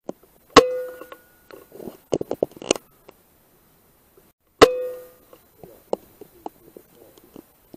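Two air rifle shots about four seconds apart, each a sharp crack with a brief metallic ring, with smaller clicks of the action being worked between and after them.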